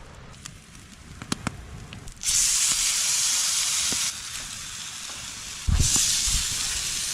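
Rockfish fillets going into a hot pan and sizzling. A few light clicks come first, then a loud sizzle starts suddenly about two seconds in and eases after a couple of seconds. A second piece lands with a soft thump near the end and starts another loud sizzle.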